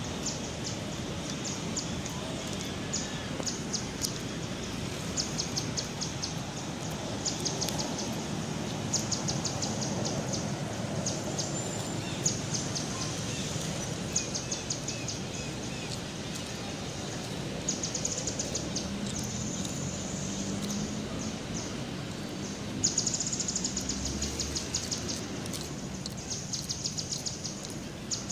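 Outdoor ambience: high, fast chirping trills that come in short bursts every second or two, over a steady background hiss.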